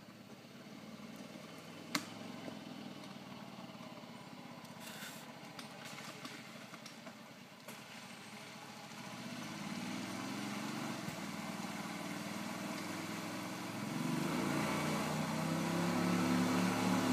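Golf cart engine running as the cart drives toward the listener, growing steadily louder from about halfway through. A single sharp click about two seconds in.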